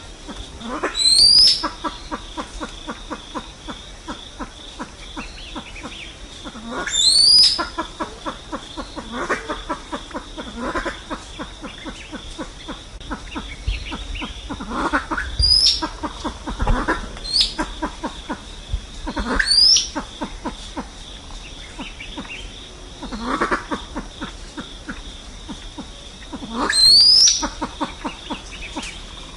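Silver pheasant calling: runs of rapid clucking ticks, each ending in a sharp rising whistle, six calls at uneven gaps of two to eight seconds. A steady high hum runs underneath.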